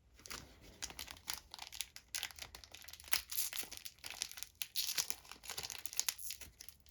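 Trading-card booster pack wrapper being torn open and crinkled in the hands: a dense, irregular run of crackles and rustles.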